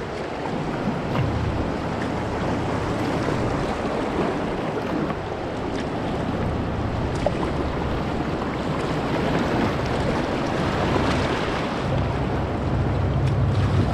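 A steady rush of river water as a kayak runs through rapids, with wind noise on the microphone.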